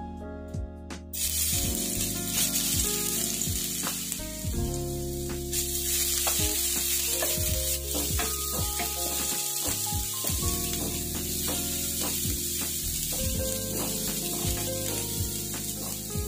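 Pounded garlic, coriander root and white pepper paste dropping into hot oil in a non-stick wok about a second in and sizzling steadily as it is stir-fried with a wooden spatula.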